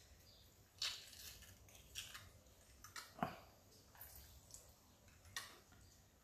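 Hand-held metal citrus press squeezing an already-pressed lime half a second time: a handful of short, soft squishes and metal clicks as the handles are worked.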